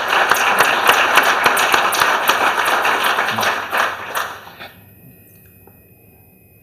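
Audience applauding, many hands clapping at once, dying away about four and a half seconds in.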